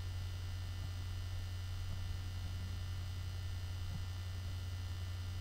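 Steady low electrical hum, mains hum picked up in the recording, with no other sound over it.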